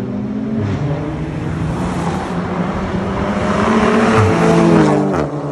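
Car engine running under load, its note climbing and growing louder, then dropping sharply in pitch near the end as the car passes close by.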